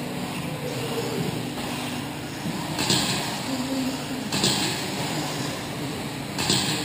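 Electric 2wd RC buggies with 17.5-turn brushless motors racing on a dirt track: a steady motor and drivetrain whine, with three short hissing bursts about a second and a half apart.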